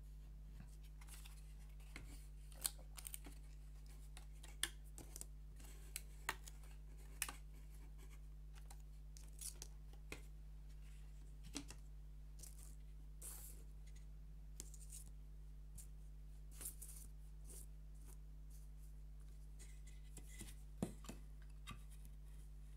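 Thin wooden pieces of a ROBOTIME Owl Pen Holder puzzle kit being handled and fitted together: irregular faint clicks and taps, a dozen or so, with a few short scraping rustles.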